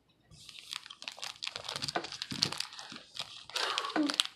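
The plastic foil wrapper of a trading-card pack crinkling in a dense run of rapid crackles as it is handled and opened, starting shortly after the beginning.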